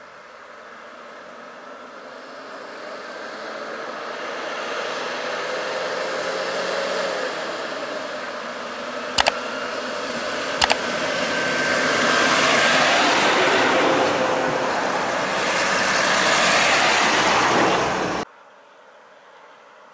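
Bus engines running close by in stopped traffic, growing steadily louder, with two sharp clicks in the middle. The sound cuts off abruptly near the end.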